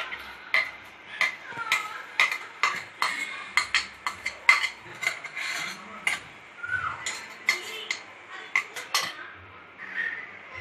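Metal spoon stirring and scraping ground coconut and jaggery paste in a steel kadai: irregular clicks and scrapes of metal on metal, a few a second, over a light sizzle of the paste frying in oil.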